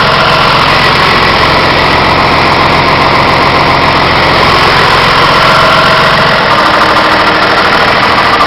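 John Deere 2955 tractor's six-cylinder diesel engine running at idle, heard loud and close. Its sound shifts slightly about six and a half seconds in.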